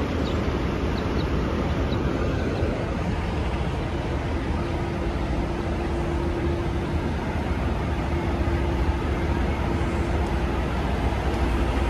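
Heavy diesel trucks idling: a steady low engine rumble, with a steady hum joining about four seconds in.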